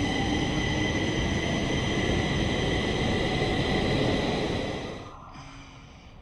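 Stockholm metro train running: a loud steady rumble with several steady high-pitched whines on top, which falls away sharply about five seconds in.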